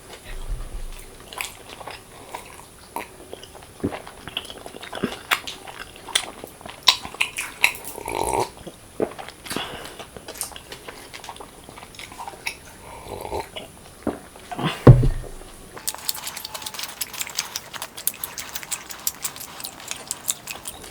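Close-miked eating: biting and chewing with wet mouth clicks, a single heavy thump about fifteen seconds in, then denser, crackly chewing over the last few seconds.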